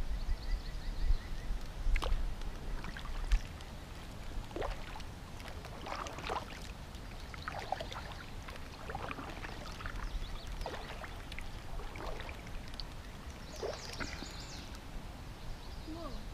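Kayak paddle strokes: the blades dip into the water with small splashes and drips, at an uneven pace every second or two. Wind buffets the microphone for the first few seconds.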